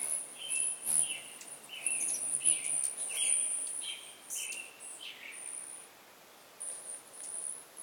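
Several hummingbirds around a feeder: high-pitched buzzing trills and short squeaky chirps overlapping, busiest at first, then thinning out with a couple more buzzes near the end.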